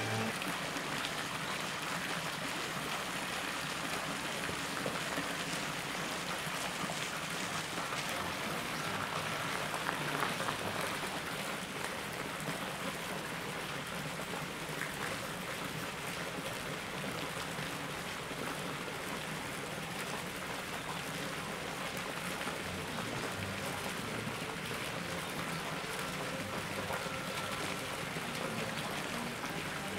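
Steady rush and splash of running water, even throughout with no distinct drips or impacts.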